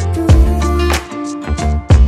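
Instrumental stretch of a background pop song, with sustained bass notes and a steady beat.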